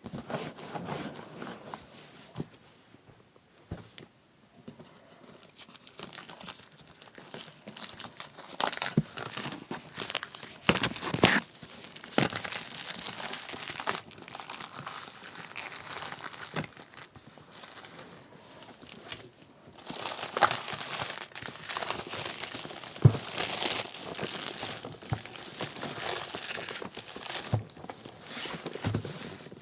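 Plastic shrink wrap on a keyboard box being slit with a knife and torn off, crinkling and tearing in uneven spells with a few sharp clicks.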